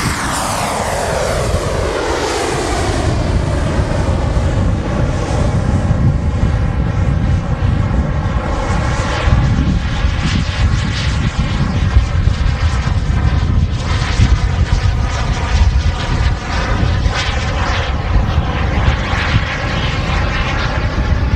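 JetCat P160 turbine of a C-ARF Lightning model jet running during take-off and climb-out. Its whine falls sharply in pitch as the jet passes in the first couple of seconds, then continues as steady rushing jet noise while the model climbs away.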